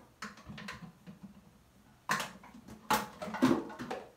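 Small household objects knocking and clattering as a young child knocks things about, a few light taps at first and then a louder run of knocks from about two seconds in.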